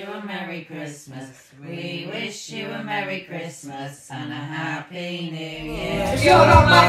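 Women's voices talking; about six seconds in, a song with acoustic guitar comes in louder.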